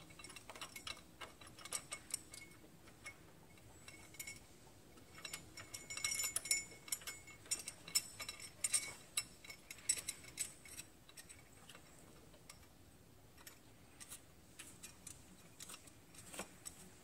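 Faint, scattered metallic clicks and ticks, in short clusters, as the alternator mounting bolt is started through a steel bracket and turned in.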